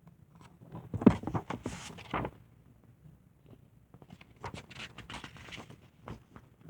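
Rustling and light knocks from a paper picture book being handled, in two short bursts: one about a second in, the other past the middle.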